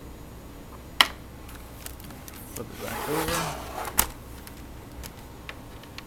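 Plastic laptop being handled and turned over on a desk: a sharp click about a second in, about a second of scraping and rubbing, then another hard clack about four seconds in, with a few faint ticks between.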